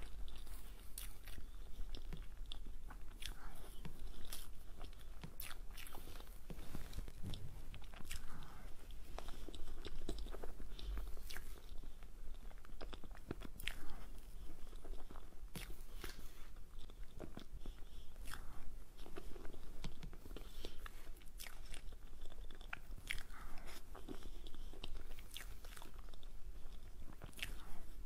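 Close-miked eating of a cream-topped mousse cake: a spoon scooping the soft cake, and chewing with many irregular sharp clicks and smacks.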